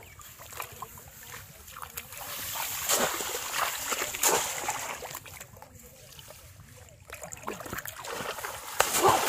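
Splashing and sloshing of feet wading through shallow water in a flooded rice paddy, in uneven bursts with a louder splash near the end.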